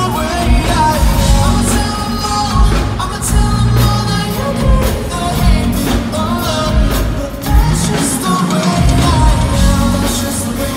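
A male lead vocalist singing a pop song live into a handheld microphone over a full band with drums, loud and continuous.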